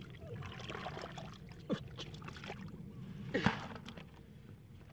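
Hands scooping through mud and water in a small hole full of trapped fish: wet sloshing and squelching, with two louder wet slaps, about two seconds apart, the second the loudest.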